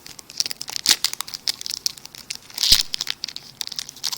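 A Gypsy Queen baseball card pack's wrapper being torn open and crinkled: a run of sharp crackles, loudest about a second in and again near three seconds.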